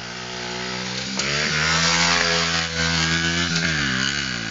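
Pit bike's small engine running and revving: its pitch climbs about a second in, holds steady, then dips and rises again near the end.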